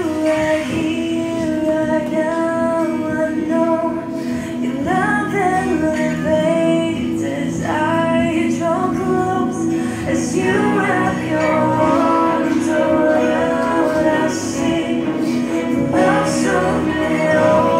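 Worship song playing: sung vocals over a steady, sustained instrumental backing.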